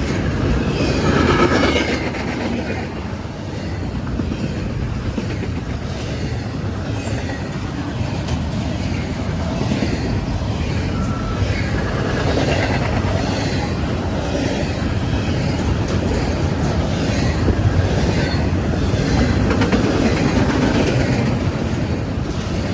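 CSX westbound intermodal freight train rolling past, its wheels clacking over the rail joints, with short high-pitched wheel squeals now and then.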